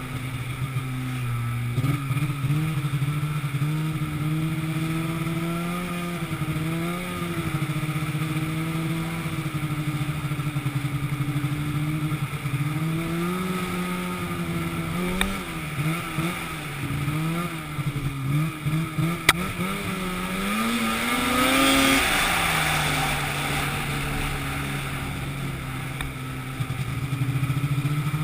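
An engine running, its pitch wandering up and dipping as the speed or load changes. It climbs about three-quarters of the way through with a swelling rush of noise, then settles back to a steady run.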